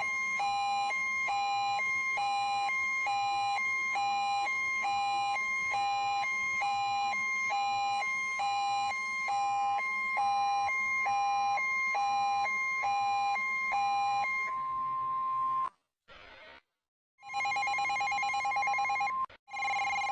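Electronic emergency alert alarm tone: a steady beep with a second pitch pulsing against it a little faster than once a second, for about fifteen seconds. It then cuts off, and after a short silence a faster-warbling version of the alarm starts.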